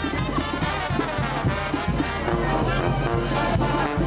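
Brass band playing, a sousaphone carrying the bass line under trumpets.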